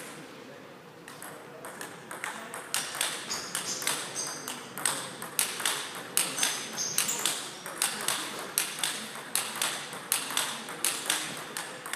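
Table tennis rally: the ball clicking off the table and the players' bats in quick, even alternation, beginning about a second and a half in after the serve.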